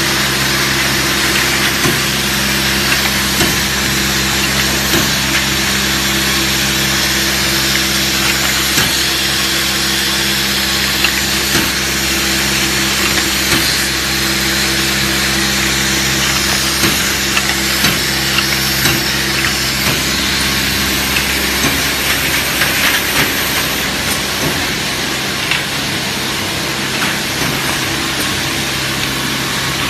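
Automatic bag-on-valve aerosol filling and crimping line running: a steady machine hum under an even hiss, with frequent small clicks and knocks from the mechanism. The low hum fades about three-quarters of the way through.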